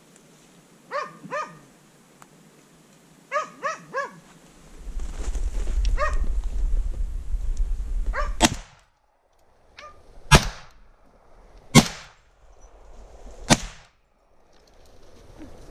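Hunting dog barking at bay in short pairs and triplets, then a low rumble, then four loud rifle shots roughly one and a half to two seconds apart, the sound cutting out briefly after some of them.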